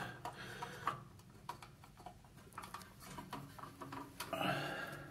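Faint, scattered clicks and taps of plastic toilet inlet valve parts being handled and pushed into place.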